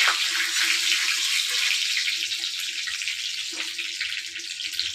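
Tempering spices sizzling in hot oil in an iron kadai: curry leaves, fenugreek, mustard seeds and asafoetida frying as a steady hiss that eases off slightly. A few light spatula scrapes against the pan.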